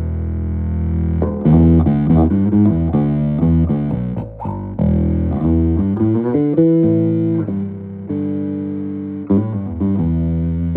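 Electric bass guitar played through a bass amp and speaker cabinet: a run of plucked single notes, with one longer, higher note held a little past halfway.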